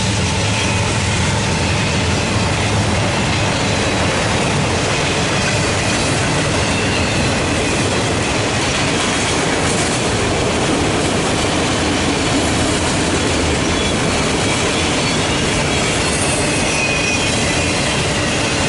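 Empty autorack freight cars rolling past close by: a steady rumble and clatter of steel wheels on the rails. A thin high wheel squeal comes through near the start and again near the end.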